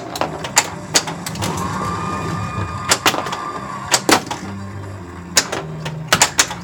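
Wheel of Fortune pinball machine in play: sharp mechanical clacks of the ball and flippers striking through the playfield, over the game's electronic music and sound effects, including a tone held for about two seconds in the middle.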